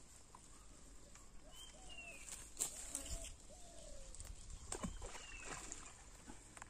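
Faint outdoor ambience: a bird repeats a short falling call about every three seconds, with a few scattered faint clicks and knocks.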